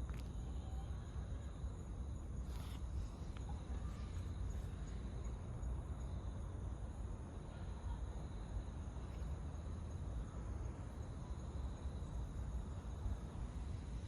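Steady outdoor background noise: a low rumble underneath, with a faint, steady high insect drone.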